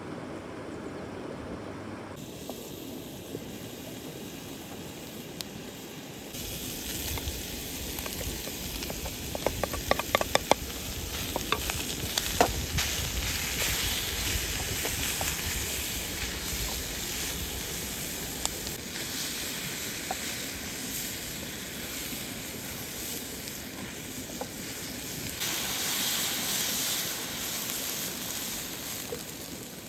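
Food sizzling as it fries in a pan over a campfire. The hiss swells about six seconds in, with a cluster of sharp clicks around ten to twelve seconds in, and grows louder again near the end.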